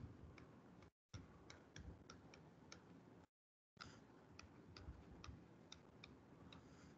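Near silence with faint, sharp, irregular clicks, about three a second: a stylus tapping on a pen tablet while handwriting.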